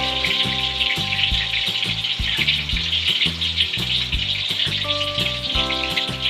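Tofu cubes deep-frying in hot oil in a steel wok: a steady, dense crackling sizzle. Background music with low sustained notes and a regular pulse plays underneath.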